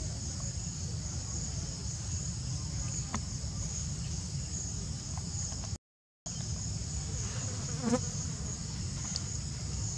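Steady high-pitched drone of an insect chorus, with a low rumble underneath. The sound cuts out completely for about half a second around the middle, and a brief louder sound near the end stands out above the drone.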